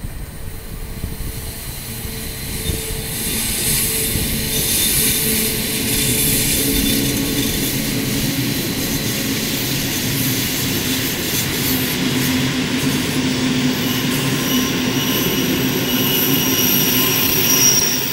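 Rhaetian Railway electric train running past on its track, the noise of its wheels on the rails growing louder over the first few seconds as it draws near, then holding steady while the carriages go by.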